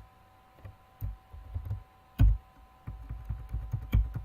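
Keystrokes on a computer keyboard: irregular dull thumps with a few sharper clicks, the loudest about two seconds in and near the end, over a faint steady electrical whine.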